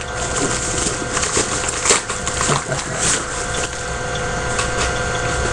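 A cardboard shipping box and its packaging being handled and opened by hand: irregular rustling, scraping and clicks, with a sharper snap about two seconds in, over a steady background hum.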